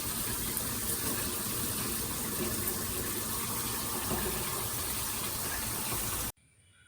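Water spraying steadily from a LifHap detachable handheld shower head, running at full flow and cutting off suddenly near the end.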